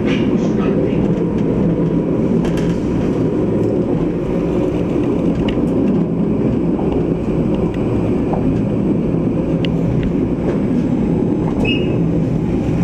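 Steady low rumble of a tram running along its track, heard from inside the passenger car: wheels on rail and running gear at even speed.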